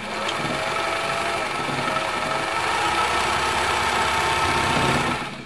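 Elna Supermatic SU 62C sewing machine running steadily, sewing a cam-driven squarish pattern stitch, its motor pitch wavering slightly; it stops just before the end.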